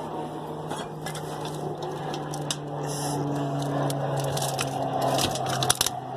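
Dumpster trash crunching, scraping and clattering as a power cord is tugged out from under it, with a steady low hum underneath. The clatter gets busier near the end.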